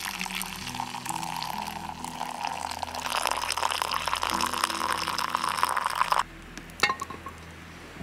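Water pouring from an enamel kettle's spout into an enamel mug, a steady stream that grows fuller about halfway through and stops abruptly about six seconds in. A single sharp knock follows a moment later.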